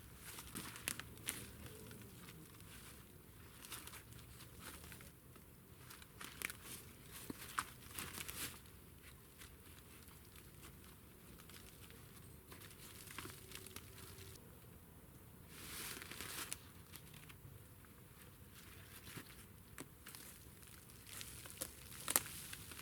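Intermittent rustling and crinkling, with scattered small sharp clicks and snaps.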